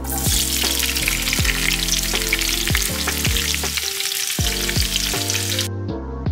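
Food sizzling in a hot frying pan, a dense steady hiss that stops suddenly about five and a half seconds in, over background music with a steady beat.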